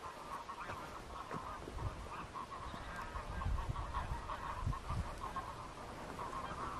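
A large flock of geese calling continuously, a dense chorus of overlapping honks, with scattered low thumps underneath.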